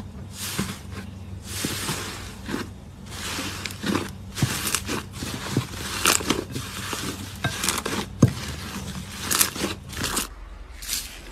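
Hands pressing, squishing and stretching thick slime: a string of irregular crackling pops and squelches. About ten seconds in it changes to a hand pressing into a bowl of foam beads, with short crunchy crackles.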